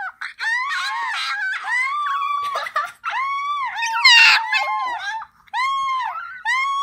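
A dog howling in a string of high yowls, each rising and falling in pitch, with short breaks between them.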